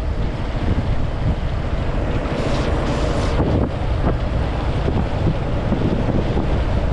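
Motorcycle riding along a road at steady speed: engine running under heavy wind buffeting on the microphone, with a brief louder rush of wind about halfway through.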